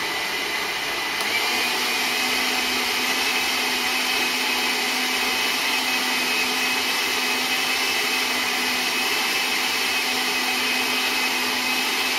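A 500-watt countertop blender running at full speed, blending a whole unpeeled pineapple into juice: a loud, noisy, steady motor whine that steps up slightly in pitch about a second in.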